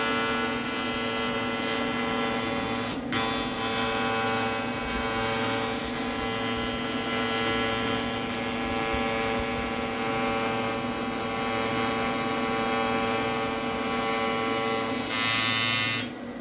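Welding arc on aluminium ladder stock, a steady electric buzz with a hiss over it. It breaks very briefly about three seconds in, gets a little louder just before the end, then cuts off suddenly.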